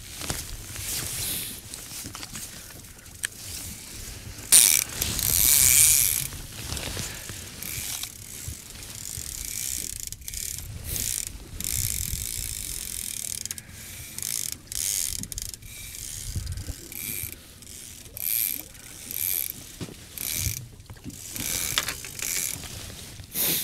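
Fishing reel's clicker ratcheting in stretches as line is paid out behind an in-line planer board, with a louder rushing patch about five seconds in.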